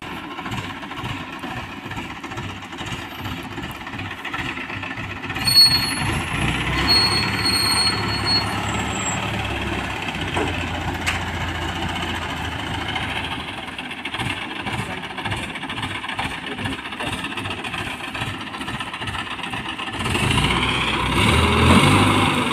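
Diesel engine of a wheeled mobile crane running steadily, a pulsing low rumble, with a brief louder knock about five and a half seconds in and a few high thin tones shortly after.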